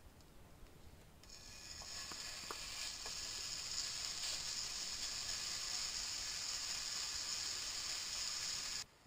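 Diced streaky bacon sizzling in hot oil in a frying pan: the sizzle starts about a second in as the pieces go in, builds and then holds steady while a spatula spreads them, and cuts off suddenly near the end.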